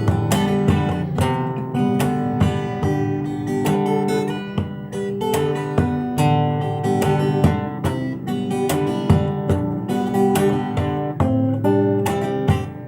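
Solo acoustic guitar played fingerstyle: a plucked melody over sustained bass notes, with some strummed chords.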